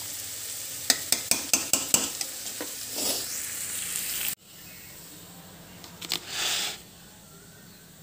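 Mutton frying and sizzling in a pan while a metal ladle stirs it, with a quick run of sharp clinks of the ladle against the pan about a second in. A little past halfway the sizzle cuts off abruptly, leaving a quieter hum with one brief hiss.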